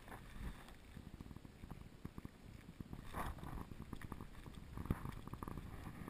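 Faint low rumble with scattered light knocks and rustles, with a brief louder scrape about three seconds in, from the action camera being handled and moved.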